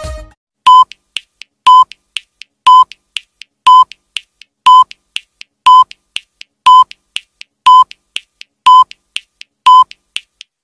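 Countdown timer sound effect: short electronic beeps, one a second, ten in all, with a faint tick halfway between each pair.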